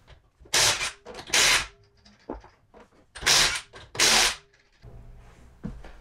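Cordless impact wrench loosening the rear wheel's lug nuts: four short bursts of hammering, with the motor whirring faintly between them.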